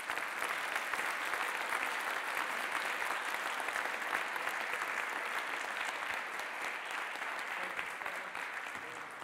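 An audience applauding: dense, steady clapping that slowly tapers off near the end.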